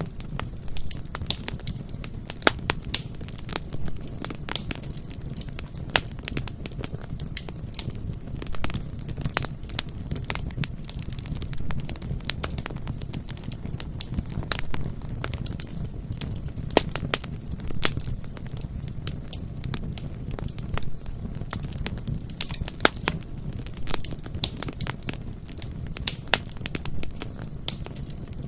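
Bonfire burning steadily: frequent irregular crackles and snaps of burning wood over a low, steady rumble of the flames.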